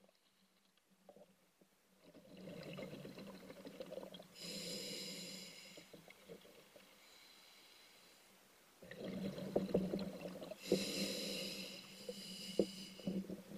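Scuba diver breathing underwater through a regulator: two rounds of exhaled bubbles gurgling and crackling, each followed by the whistling hiss of an inhalation through the demand valve. The first two seconds are nearly quiet.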